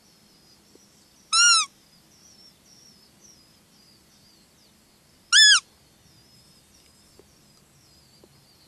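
Two short, high, piping calls about four seconds apart, each rising then falling in pitch: a roe deer lure call blown to imitate a doe's fiep during the roe rut. A bird sings faintly throughout.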